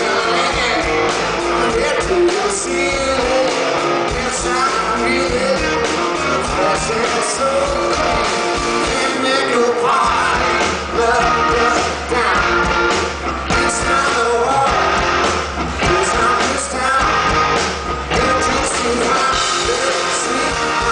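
Live rock band playing: a man singing lead over a Telecaster-style electric guitar, bass and drums, loud in the crowd's recording.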